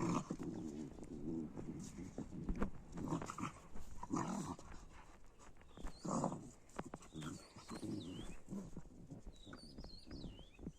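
Two dogs play-fighting, giving short, repeated bursts of growling.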